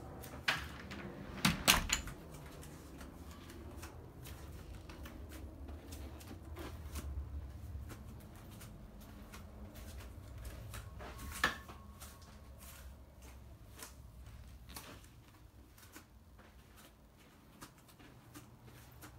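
Soft irregular clicks and steps of someone walking through rooms with a phone in hand, with a sharp clatter of a door being handled about a second and a half in and another single knock a little past halfway.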